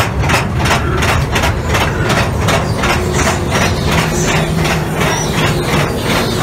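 Calico Mine Train roller coaster cars running along the track: an even, rhythmic clatter of about five strokes a second over a low steady hum.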